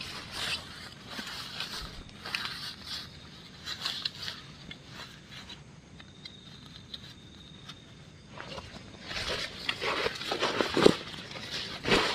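Irregular rustling, scraping and light knocks from a nylon dome tent's fabric and camping gear being handled, sparse at first and busier in the last few seconds.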